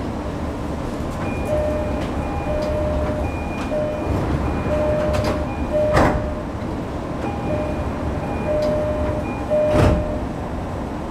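Sotetsu 10000 series commuter train's door-closing chime beeping in a repeated pattern, in two runs, over the stopped train's steady hum. A sharp thud comes about six seconds in and another near the end, as the sliding doors shut.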